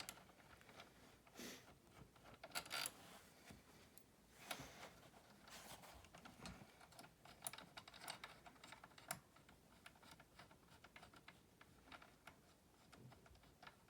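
Faint, irregular clicking and tapping of a hand tool and metal bolts as two bolts are loosened and removed from a recliner's handle extension, with a few sharper clicks scattered through.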